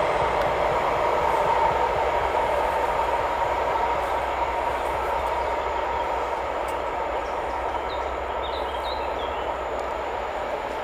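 Container flat wagons of a freight train rolling away along the track, a steady rolling rumble that slowly fades as the train recedes.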